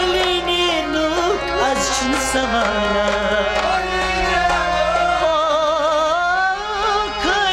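A male voice sings an ornamented melody with wavering vibrato, accompanied by a plucked long-necked string instrument and percussion.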